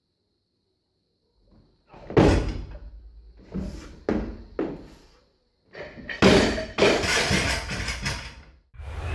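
Heavy barbell jerk from the stands: about two seconds in, a sharp thud as the bar is driven overhead and the lifter's feet land on the platform, followed by a few lighter knocks. Around six seconds in, the loaded barbell is dropped, its bumper plates slamming onto the platform and bouncing and rattling for a few seconds.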